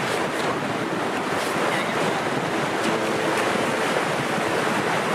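Ocean surf washing steadily onto the beach, with wind noise on the microphone.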